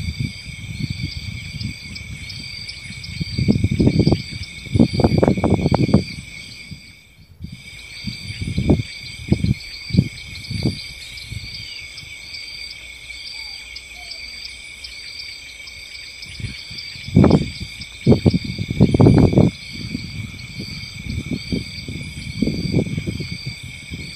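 Steady insect chorus of crickets, with a faint high chirp repeating about once a second. Low rumbling noise on the microphone comes and goes, loudest around four to six seconds in and again around seventeen to nineteen seconds, and the sound drops out briefly about seven seconds in.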